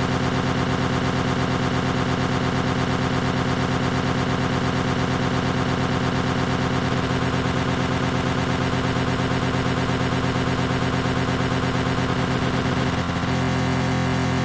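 Greenworks 40V cordless electric lawn mower running steadily, a constant motor-and-blade hum whose tone shifts slightly near the end.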